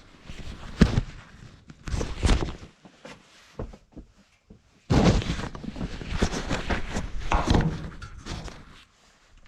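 Heavy spalted maple slab being handled and turned over: two sharp wooden knocks about one and two seconds in, then a few seconds of bumping and scraping wood against wood.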